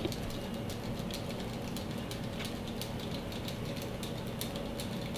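KastKing Kodiak 5000 spinning reel being cranked steadily to wind monofilament backing onto its spool: a steady whir of the gears with rapid light clicking.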